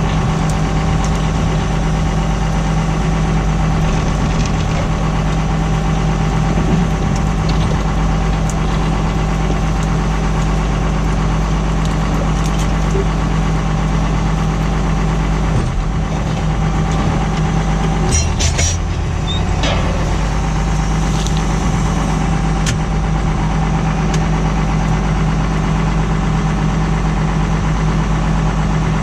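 Tractor engine running steadily while pulling a plough. A brief clatter of knocks breaks in about eighteen seconds in.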